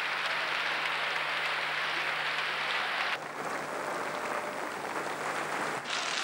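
Large crowd applauding, heard through an old archival recording. About three seconds in, the sound cuts abruptly to a duller, more muffled crowd noise, and it changes again near the end.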